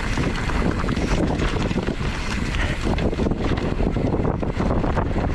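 Wind buffeting the microphone over a constant clatter and rattle from a mountain bike riding fast down a rough, rooty and rocky trail.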